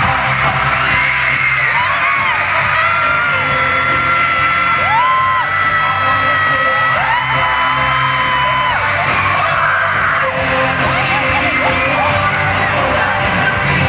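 Live pop music from a boy band singing over the arena sound system, with many fans screaming over it in high, sustained shrieks throughout.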